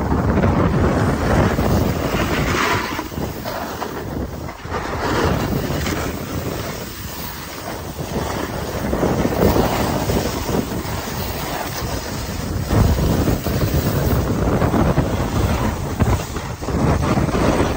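Wind rushing over the microphone while moving fast down a ski run, mixed with the hiss and scrape of edges sliding and carving on packed snow, swelling and easing with each turn.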